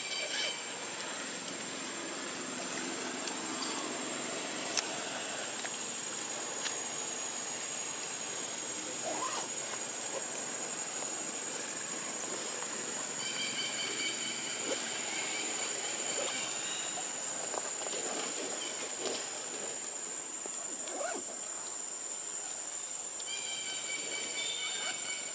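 Steady high-pitched insect drone, with a call of several parallel tones rising out of it twice: for about four seconds roughly halfway through, and again near the end.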